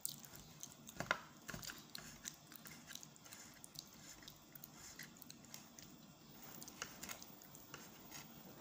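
Knife cutting slices from a banana cake: soft crumbly scraping with scattered light clicks and taps, the sharpest about a second in.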